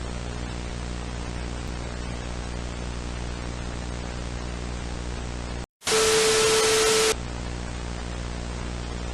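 Steady broadcast static hiss over a low electrical hum. About two-thirds of the way in it cuts out for a moment, then a loud burst of static carrying a steady mid-pitched tone lasts just over a second before the plain static resumes.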